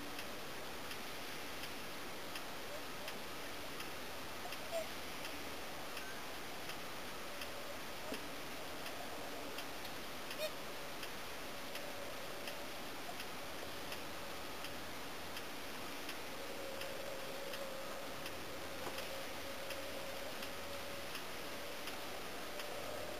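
Steady hiss with a light, regular mechanical ticking about twice a second, typical of a camcorder's own tape mechanism. Faint whooper swan calls come in now and then, held longer in the second half.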